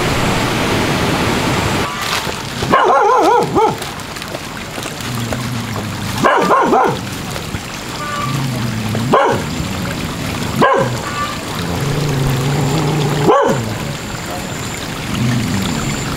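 A dog barking: a quick run of barks about three seconds in, then single barks every couple of seconds. Under the barks is a steady rushing noise, heaviest in the first two seconds.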